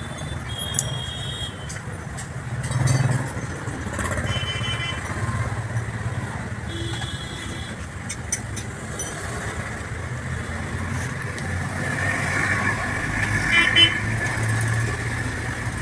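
Road traffic running past with a steady engine drone, broken by several short horn toots and a vehicle passing louder near the end.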